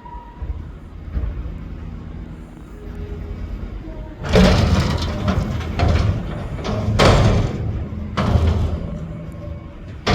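Mack McNeilus front-loader garbage truck with its diesel engine running low and steady. From about four seconds in come a string of heavy metallic bangs and clatters, the sound of a dumpster being knocked empty into the hopper.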